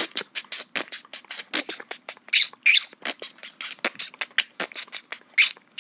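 Beatboxing: a fast run of mouth clicks, hisses and puffs, several a second.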